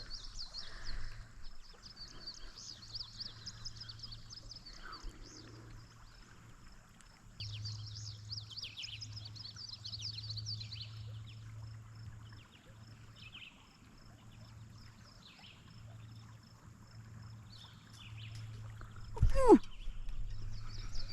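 Small birds chirping in bouts of quick high calls, over a steady low hum. About nineteen seconds in, one short sharp sound falls quickly in pitch.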